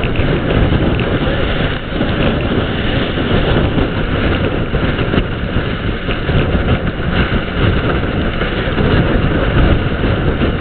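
Loud, steady rush of gale-force wind buffeting the microphone, mixed with the noise of a Formula 60 trimaran sailing at high speed.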